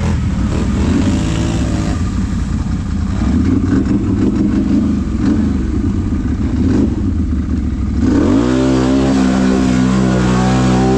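ATV engine running, then revving up sharply about eight seconds in and holding at high revs.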